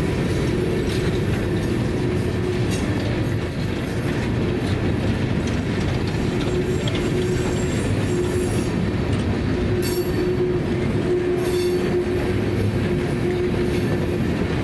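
Freight train of open-top coal cars rolling past on a curve: a steady rumble of wheels on rail, with a steady low tone that comes and goes and a few faint clicks.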